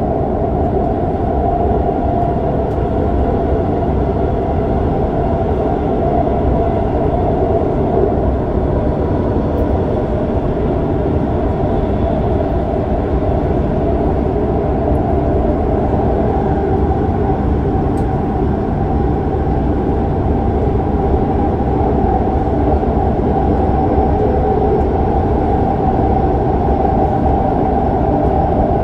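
Shinbundang Line subway train running at speed through a tunnel: a loud, steady running noise with a constant hum held through it.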